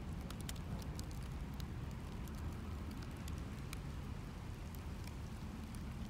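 A steady low rumble with scattered sharp crackles and ticks over it, a layered ambient soundscape.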